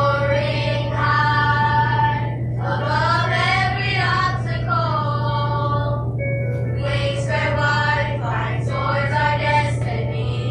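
An elementary-school children's chorus singing the school song in phrases with short breaths between them, over a steady low hum.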